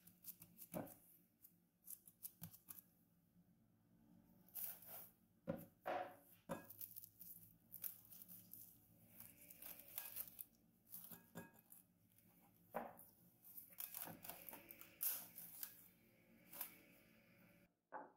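Plastic cling film being pulled off, torn and stretched over a glass bowl by gloved hands, in a series of short crackling, rustling bursts.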